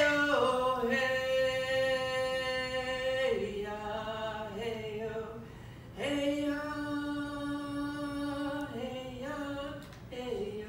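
A woman singing a traditional Shinnecock song unaccompanied, in slow phrases of long held notes. About six seconds in she breaks off briefly, then slides up into a new phrase.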